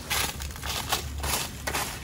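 Footsteps crunching on dry fallen leaves, a few steps a second, growing fainter as the walker moves away along a forest trail.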